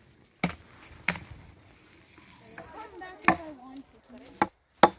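Sharp, irregular chopping strikes into a stick of wood, five in all, with longer gaps in the middle.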